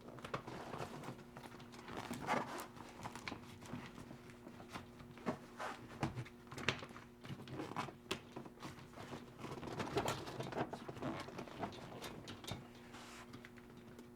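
Irregular handling noises of a folding-kayak spray cover being fitted: fabric rustling with scattered small clicks and knocks as its grommets and hooks are fastened at the rear of the cockpit. A faint steady hum lies underneath.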